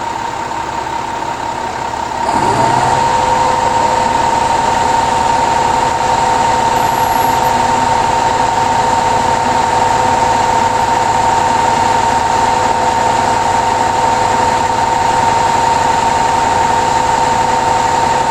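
An engine running with a steady high whine. About two seconds in it speeds up, louder and rising in pitch, then holds at a steady higher speed.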